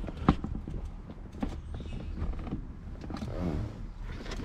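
Plastic creaking and clicking as the airbag module is worked loose from a GMC Sierra / Chevy Silverado steering wheel, with a sharp click just after the start and a few smaller clicks, and a drawn-out creak near the end.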